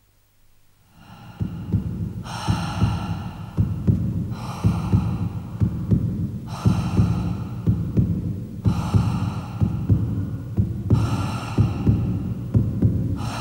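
Suspense underscore: a low, throbbing, heartbeat-like pulse starts about a second in, with a brighter ringing tone swelling in for about a second roughly every two seconds.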